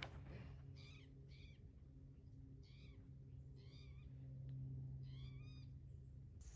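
Faint animal calls: five short, wavering calls spaced irregularly, over a steady low hum.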